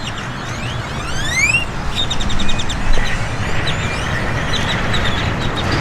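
Pressure washer's petrol engine running steadily under a hiss of spray, while small birds chirp over it in quick rattling series and a few rising whistles.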